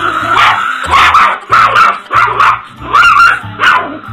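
A Chihuahua barking over and over in quick, sharp, high-pitched barks, about two or three a second, over background music with a steady bass line.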